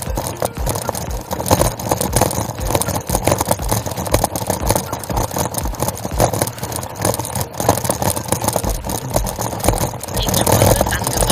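Bicycle rolling over cobblestone paving, its frame and the camera mount rattling in a continuous irregular patter of small knocks.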